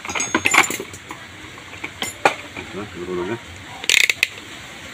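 Scattered sharp clicks and crackling handling noise, clustered near the start and again about four seconds in, with a short low voice sound around three seconds; no engine is heard running.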